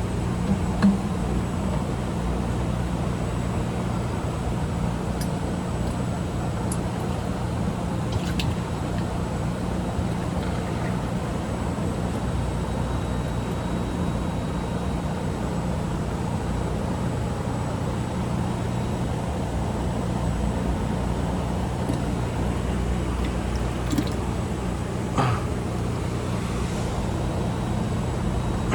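A steady low mechanical hum over a constant background rush, with a few faint clicks and knocks.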